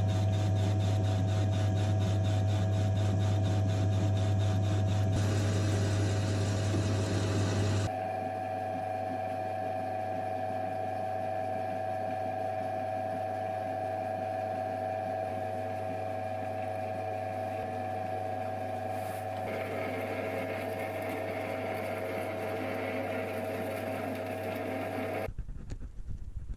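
Metal-turning lathe running under power while roughing out mild steel bar: a steady motor hum with a held whine. The sound shifts abruptly about eight seconds in and twice more later as turning and drilling passes follow one another.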